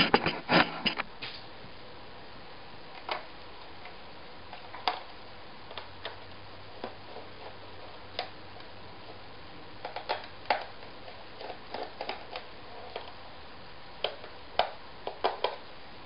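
Scattered light clicks and taps of a small screwdriver working the screws out of a Dell XPS L502X laptop's back panel, in small clusters a few seconds apart, with a few louder knocks in the first second.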